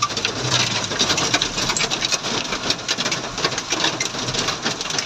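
Heavy rain falling during a storm, a dense, rapid run of drops striking the surface.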